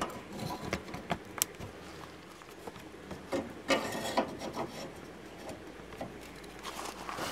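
Scattered small clicks, light knocks and rubbing as a metal furnace vent cover plate is handled and fitted over its opening on an RV's outside wall.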